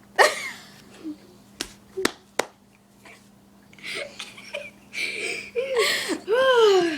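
A child's high-pitched squealing voice, with falling squeals loudest near the end, and three sharp clicks or slaps about two seconds in.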